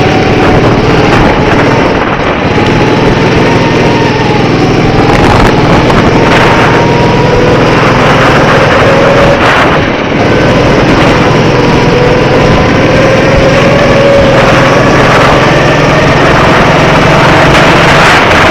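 Go-kart's small petrol engine running at speed. Its pitch slowly rises and dips as the throttle is worked.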